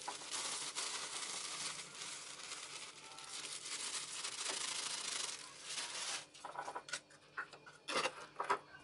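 Dry breadcrumbs poured from a plastic bag into a glass jar, a steady granular hiss lasting about six seconds. Then a few short rustles and clicks as the bag is set aside and the jar's lid is put on.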